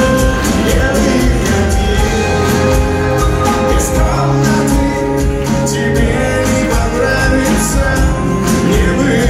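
Live rock band music played loud through a club PA, with a steady drum beat, sustained pitched notes and some singing, recorded from within the audience.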